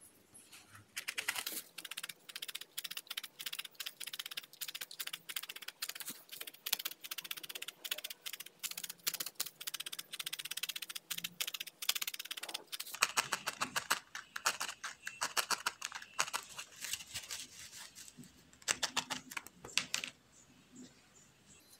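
Felting needle stabbing rapidly and repeatedly into wool held on a paper sheet over a foam pad, a quick series of sharp ticks that stops near the end.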